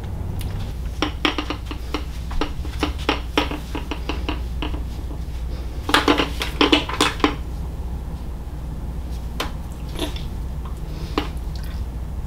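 Clusters of light metallic clicks and clinks from a hard box handbag's metal clasp, corner fittings and strap hardware being handled, with a few single clicks later on. A steady low air-conditioner hum runs underneath.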